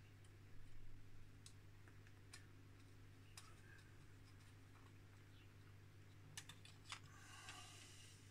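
Faint, scattered clicks and ticks of a hobby knife working a thin photo-etched metal fret on a cutting mat, with a soft rustle near the end as the fret is lifted. A low steady electrical hum runs underneath.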